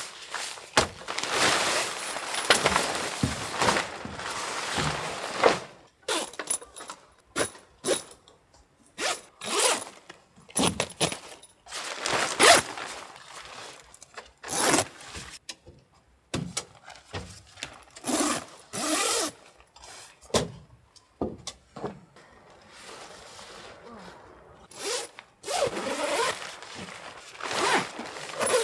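Irregular handling noises: scraping, rustling and light clinks in short bursts with pauses between, as gear is moved about.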